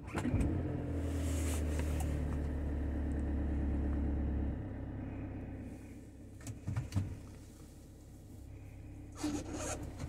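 VW Transporter T6 2.0 TDI four-cylinder diesel catching on a cold start and running at a raised cold idle, heard from inside the cab. After about four and a half seconds the idle steps down to a lower, quieter steady run. A few short knocks come later.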